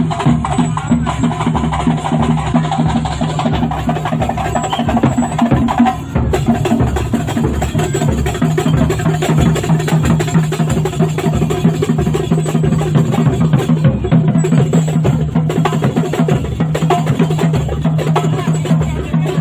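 Procession music accompanying a Barong: drums and fast, dense struck percussion over a steady low droning tone, with a short break about six seconds in.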